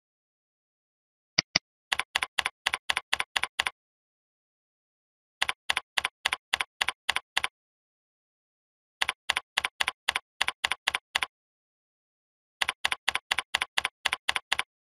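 Two quick mouse clicks about a second and a half in, then computer keyboard typing in four runs of evenly paced keystrokes, about five a second, each run about two seconds long with silent gaps between.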